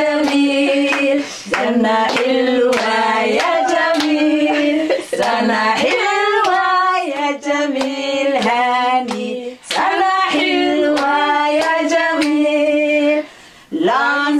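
Women singing together while hands clap a steady beat in time with the song.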